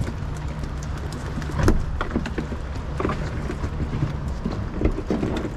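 Boat engine idling with a steady low hum, under a scatter of irregular light knocks and taps, one louder knock about a second and a half in.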